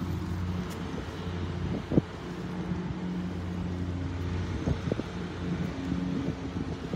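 A motor vehicle engine running with a steady low hum, and a short sharp knock about two seconds in.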